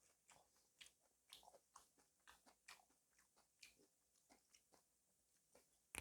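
A person chewing food with the mouth close to the microphone: a faint, irregular run of short wet clicks, a few a second, with a louder one near the end.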